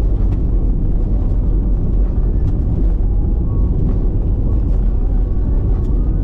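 Loud steady low rumble of wind on the microphone.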